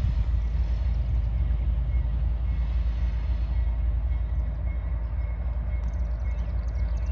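Diesel locomotives of an approaching CSX freight train, heard as a steady low rumble.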